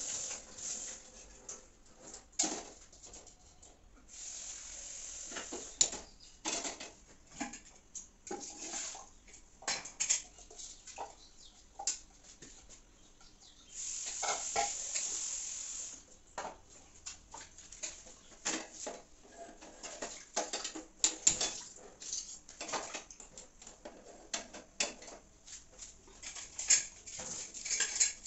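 Washing up at a kitchen sink: pots, bowls and utensils knocking and clattering, with the tap running in three short spells of about two seconds.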